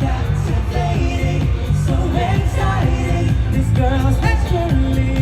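Live pop song: singing over a loud backing track with a steady beat, heard through an arena's sound system.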